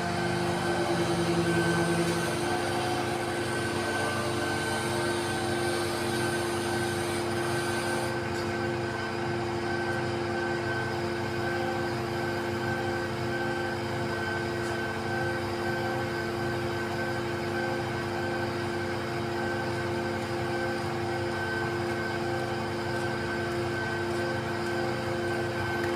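Diesel engine of an XCMG truck-mounted concrete pump running steadily, with a steady hum of several tones. A low tone drops out about two seconds in.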